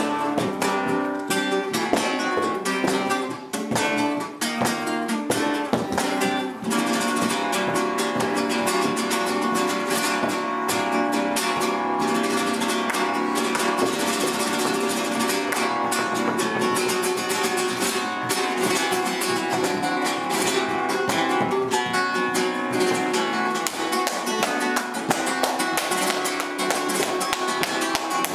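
Flamenco guitar playing a fast, strummed rhythm, the strokes dense and driving.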